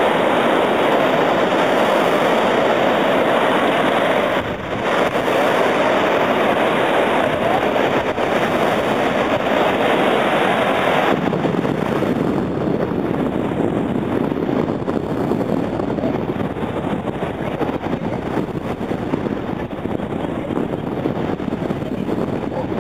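Steady rush of wind on the microphone mixed with breaking ocean surf. The noise turns abruptly duller about eleven seconds in.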